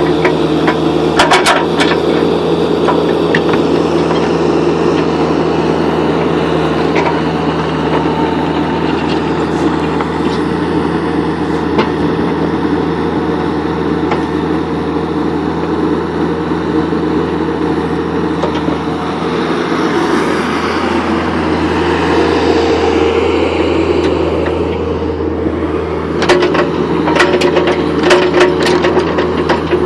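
Kubota U45-3SS mini excavator's diesel engine running steadily, with sharp metallic knocks about a second in and a cluster of them near the end.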